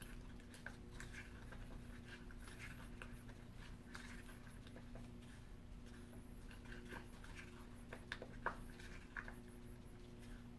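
Faint scraping and light tapping of a wooden mixing stick stirring silicone in a paper cup and wiping the cup's sides, as the hardener is mixed in. One sharper tap about eight and a half seconds in, over a faint steady hum.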